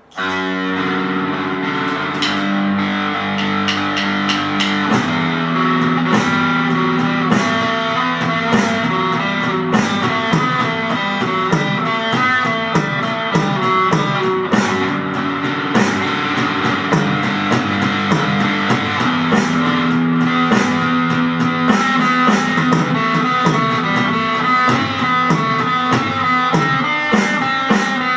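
Rock music led by guitar, with bass and drums keeping a steady beat; it starts abruptly and runs on without singing.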